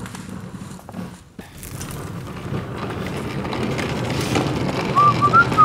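A steady jumble of low workshop noise from handling and assembling, swelling slowly. Near the end a person whistles a few short notes.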